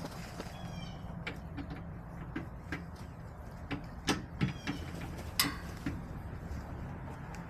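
Backyard hens pecking and scratching in dry dirt: a scatter of sharp ticks and taps, the loudest about four to five and a half seconds in, with a few short high chirps about half a second in.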